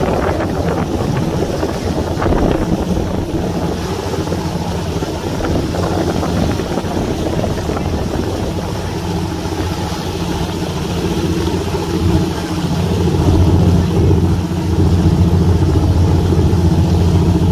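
Motorboat engine running with a steady low hum under wind and water rush; the hum grows louder about two-thirds of the way through.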